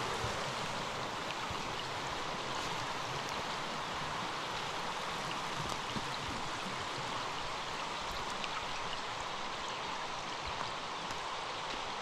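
Small forest stream running over a shallow cascade: a steady rush of water, with a few faint scattered ticks.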